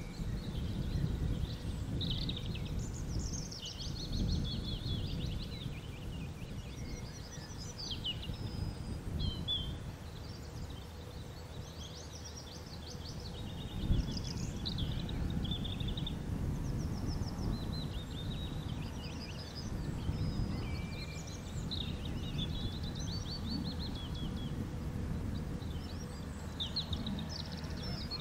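Several small songbirds singing and calling in overlapping chirps and trills, over a low steady rumble. A single sharp knock comes about halfway through.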